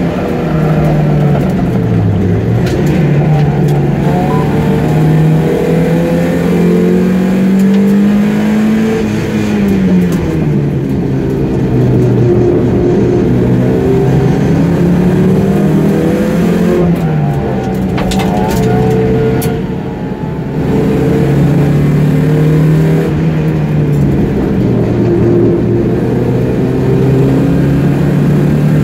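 Classic race car's engine heard from inside the cockpit at racing pace, its pitch climbing under acceleration and falling on lifts and gear changes. About two-thirds through, it drops off briefly as the throttle is lifted, then comes back on load.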